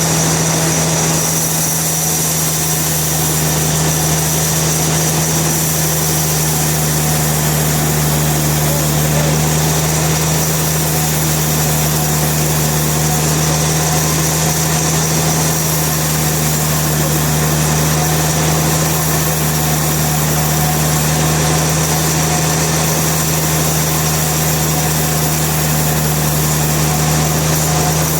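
Sawmill machinery running steadily: a constant low motor hum with a thin high whine above it, no cutting strikes or changes.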